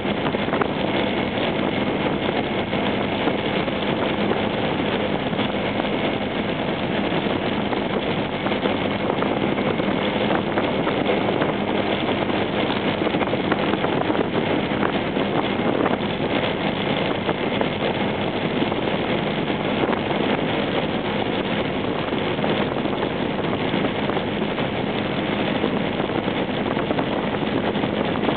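Honda PCX scooter's single-cylinder four-stroke engine running at a steady cruise, mixed with wind noise on the microphone.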